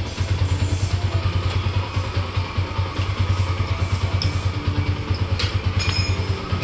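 Single-cylinder motorcycle engine idling steadily with an even, fast beat, most likely the Yamaha Exciter 150's. A few light metallic clinks come near the end.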